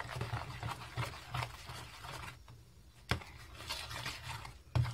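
Glue slime being stirred in a plastic bowl: irregular scraping and rubbing against the bowl, easing off a little past halfway, with a sharp knock about three seconds in and another near the end.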